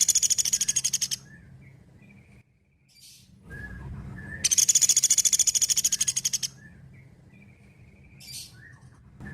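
Pelatuk beras woodpecker calling in fast, even rattling trills: one trill ends about a second in and another runs about two seconds in the middle, with a few short, softer calls between.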